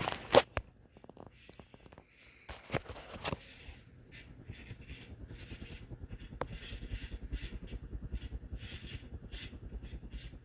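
A Harbor Breeze Marco Island ceiling fan running with bad bearings: repeated squawking squeaks and scraping in a steady rapid rhythm as the motor turns, the sign of worn, dry bearings. A few sharp clicks come at the start.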